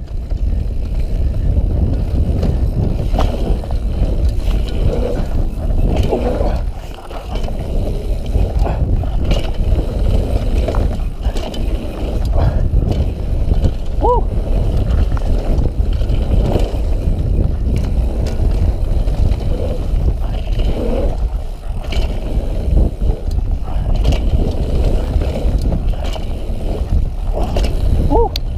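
Mountain bike ridden fast down a dirt forest trail, heard from a rider-mounted camera: loud wind buffeting on the microphone over tyre rumble and the clatter of the bike over roots and bumps. The sound drops away briefly about seven seconds in, and a short squeak comes twice, midway and near the end.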